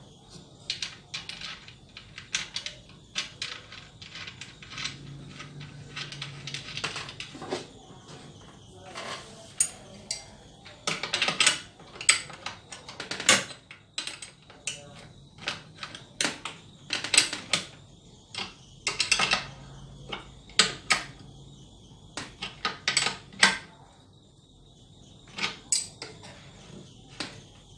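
Irregular clicks, taps and knocks of wooden parts and metal tools being handled on a wooden workbench during hand assembly, with some sharper metallic clinks.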